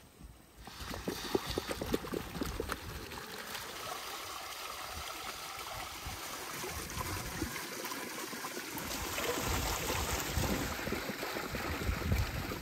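Spring water splashing steadily from a spout onto stones, starting suddenly under a second in, with small knocks of grapes dropping into a stainless steel colander.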